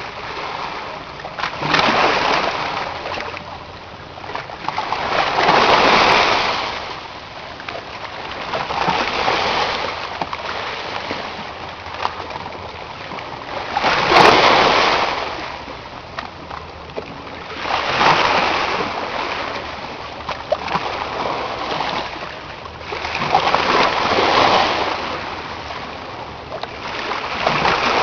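Red Sea waves breaking and washing in, one surge of splashing water every three to four seconds, the loudest about halfway through.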